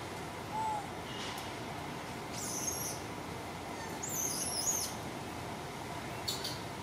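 A few short, high-pitched chirping squeals over a steady hiss. The loudest is a warbling squeal about four seconds in. A brief low hoot comes just after the start.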